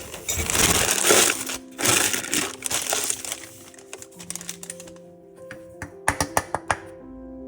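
Plastic piping bag crinkling as it is handled and squeezed, then a quick run of small sharp clicks about six seconds in, over background music.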